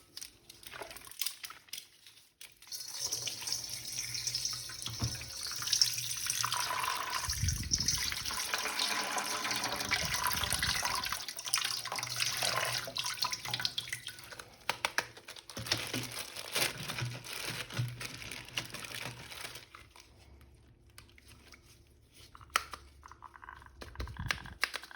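Tap water running into a sink and splashing, as a plastic action figure is washed under it, from about three seconds in until it stops about five seconds before the end.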